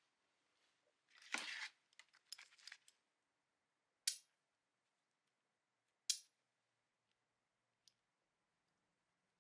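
Handling noises of small hard objects: a short rustle about a second in, a few light clicks, then two sharp clinks about two seconds apart.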